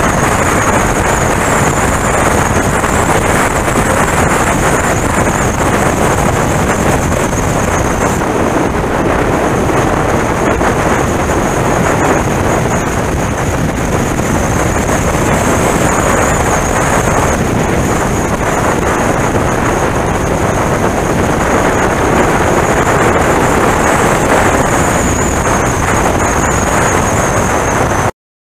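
Steady rush of riding wind over the microphone of a camera mounted on a moving sport motorcycle, with the engine and road noise underneath and a thin high whine over it. It cuts off abruptly near the end.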